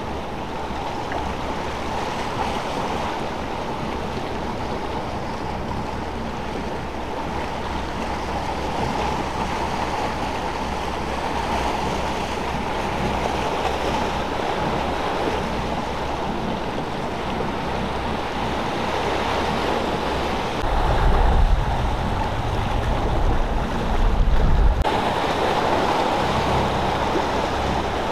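Steady wind and water noise from the harbour under a faint low hum. About two-thirds of the way through, gusts of wind buffet the microphone with a heavy rumble.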